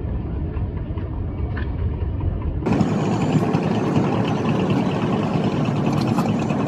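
Boat engine running steadily. About two and a half seconds in, it cuts abruptly to a different, brighter and busier engine recording.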